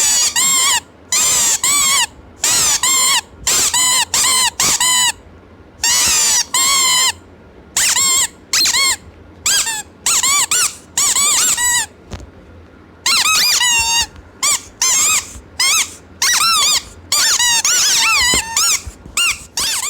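Squeaky baby toy being squeezed over and over: many short, wavering squeaks in irregular runs, some in quick pairs.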